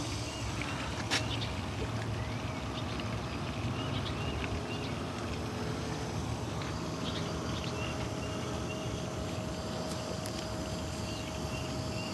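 A 1999 Buick Regal's electric fuel pump running steadily with a low hum and a thin held whine, switched on by a jumper wire across its relay so it pumps gasoline out through the fuel line with the engine off. There is a single click about a second in.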